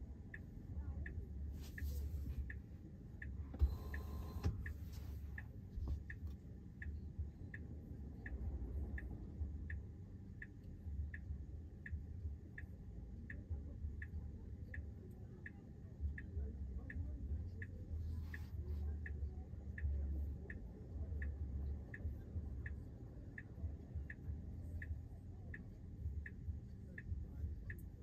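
Tesla's turn-signal indicator ticking steadily inside the cabin while the car waits to turn left, over a low cabin hum.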